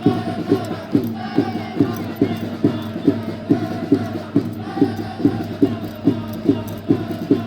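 Football supporters chanting together in unison to a steady drum beat, a little over two beats a second.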